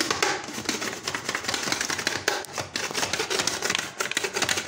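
A red radish being sliced on a Bruno plastic vegetable slicer: the pusher holding it is worked rapidly up and down over the blades, making a fast, continuous run of clicking, scraping strokes.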